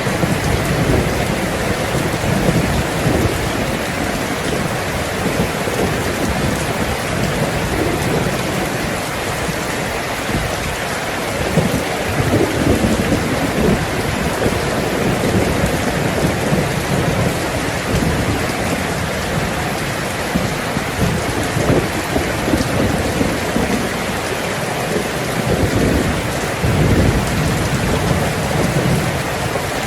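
Heavy rain falling steadily on a tin roof, a dense even patter, with low rolls of thunder rumbling under it several times, the strongest near the end.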